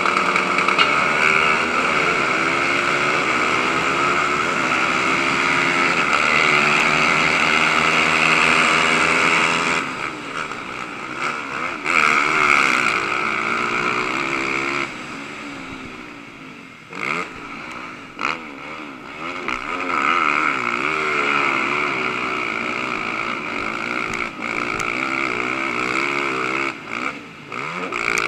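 A pack of race quad engines at hard, steady throttle off the start, then the Can-Am DS450's single-cylinder four-stroke engine rising and falling in pitch with throttle and gear changes as it races over dirt. A few sharp knocks come through in the second half.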